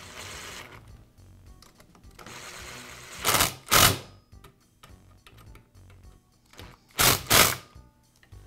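Cordless electric screwdriver whirring in two short runs as it drives the plastic air filter base screws on a Troy-Bilt string trimmer engine, followed by two pairs of loud, sharp plastic clacks, the second pair as the air filter cover is snapped shut.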